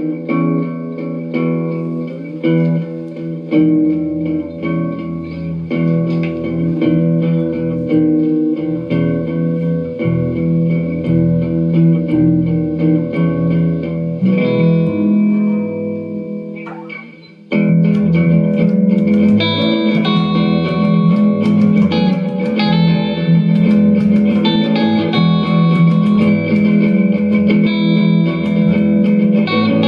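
Instrumental background music with guitar. A little past halfway it thins out and dips briefly, then comes back in fuller.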